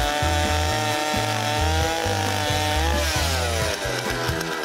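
Petrol-powered ice auger running at speed as it bores a hole through lake ice, with water welling up through the hole. About three seconds in, its engine note falls as the engine slows down.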